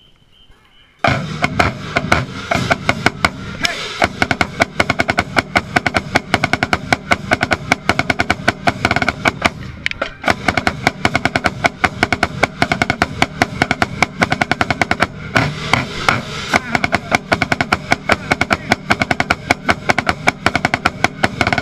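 Marching band playing, with snare drums loud and close in rapid, dense strokes over sustained band tones; it starts suddenly about a second in.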